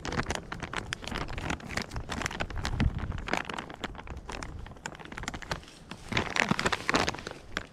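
Dry leaf litter and brush crackling and rustling as a dense run of small crackles. It is busiest in the first few seconds, eases off in the middle and picks up again about six seconds in.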